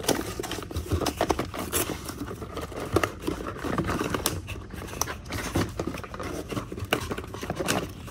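Cardboard packaging insert being torn and scraped while a plastic Transformers figure is pulled free of its ties, making irregular crackles, scrapes and plastic clicks.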